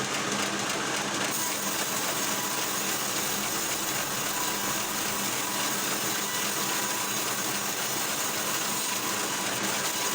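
A powered saw cutting wood: a steady, continuous running noise, with a brighter high hiss joining about a second in.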